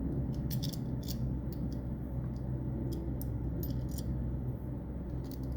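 Light metallic clicks and ticks from the metal stapler arm of a homemade telegraph straight key being handled and pressed to show its contact gap, over a steady low hum.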